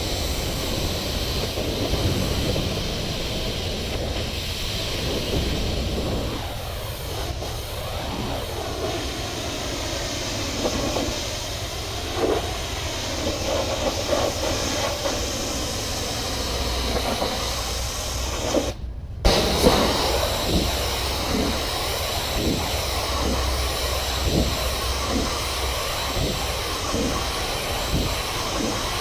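Pressure washer running, its engine humming under the steady hiss of the high-pressure water spray; the sound drops out for a moment about two-thirds through.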